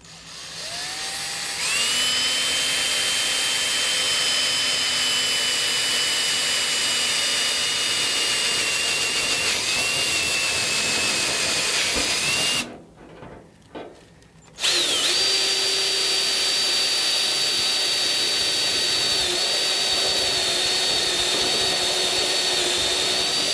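Ryobi cordless drill driving a step bit through a car's sheet-metal deck lid, enlarging pilot holes to 3/8 inch. The motor spins up into a steady whine, stops for about two seconds around the middle, then starts again for a second long run.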